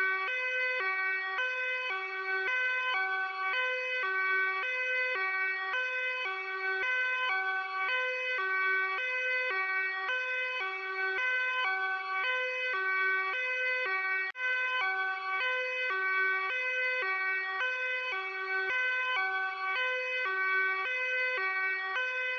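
Luxembourg police hi-lo two-tone siren, switching quickly and evenly back and forth between a lower and a higher tone, with a momentary break about fourteen seconds in.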